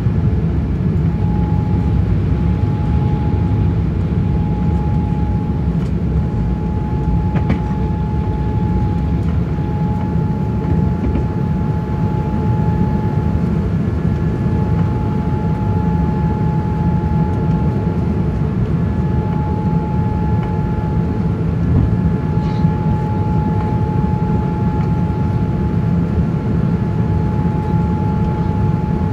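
Cabin noise inside a Boeing 787-9 airliner: a steady rumble of engines and airflow with a constant high whine over it.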